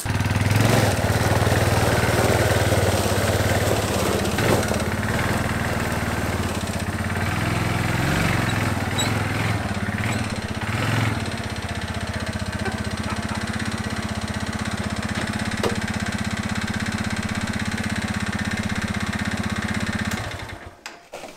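Bashan 250 quad's engine running. Its revs rise and fall over the first ten seconds or so, then it settles to a steady idle and stops near the end.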